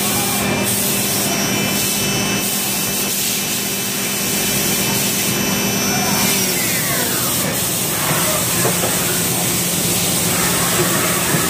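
Spindle of a 2006 Haas VF-2SS super-speed vertical machining center running at 12,000 rpm with a steady whine. About six seconds in it winds down, its pitch falling over about a second, leaving a steady machine hum.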